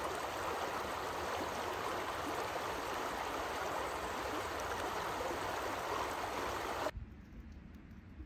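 River water rushing over a shallow rocky riffle, a steady, even rush of water. It cuts off suddenly about seven seconds in, leaving only faint background sound.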